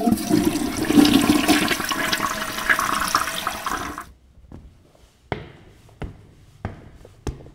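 A loud rushing, swirling water sound effect for about four seconds, stopping abruptly. It is followed by sharp, single drip-like clicks, about one every 0.7 seconds.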